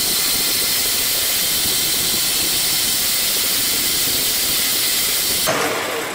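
Metal lathe running with a steady, loud mechanical hiss, then switched off and spinning down near the end.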